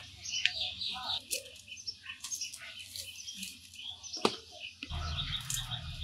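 Small birds chirping over and over, with one sharp knock about four seconds in and a low rumble coming in near the end.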